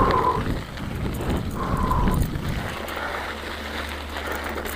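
Mountain bike being ridden over a rough dirt track: a continuous low rumble and rattle, with two short high tones, one at the start and one about two seconds in.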